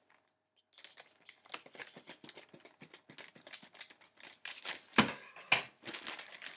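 Scissors cutting open a thin clear plastic packet, the plastic crinkling and rustling as it is handled and snipped. It starts under a second in, with two sharp, louder clicks about five seconds in.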